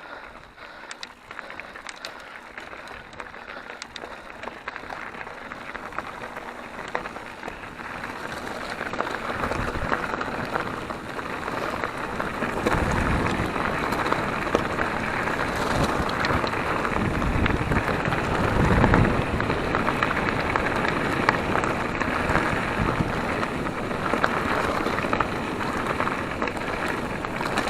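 Mountain bike tyres rolling over a dirt trail, a steady crackling rush of noise that grows louder, with wind buffeting the microphone in gusts from about ten seconds in.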